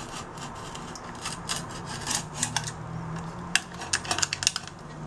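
Box-cutter blade scraping and clicking against a stainless steel thermos as it slits a heat-shrunk PET bottle sleeve off it: irregular sharp ticks and scrapes that grow busier after about three and a half seconds.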